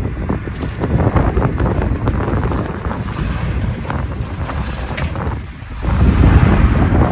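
Off-road vehicle crawling over rough, rocky desert ground, its low rumble mixed with crunching and rattling, while wind buffets the microphone. It drops briefly about five seconds in, then comes back louder.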